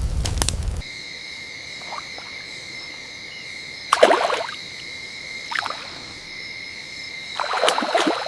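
Frogs croaking over a steady high-pitched chorus of night insects or frogs, with louder croaks about four seconds in, again briefly later, and near the end. Under a second in, a loud crackling noise cuts off abruptly.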